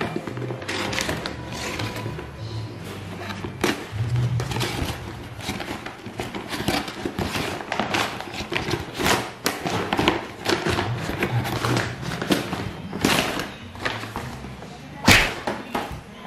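Cardboard camera box and its paper packaging being handled and opened by hand: irregular rustling, scraping and small knocks, with one sharp, louder knock about 15 seconds in.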